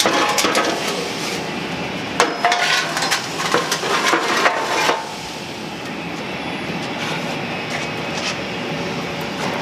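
Metal clanks and knocks from a cut-open car muffler being handled, a cluster of them in the first half. Then a steady background noise with no strikes.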